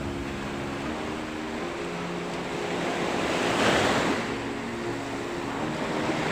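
Sea surf washing and breaking against a rocky shore, with one wave swelling up and breaking about three and a half seconds in. Faint background music runs underneath.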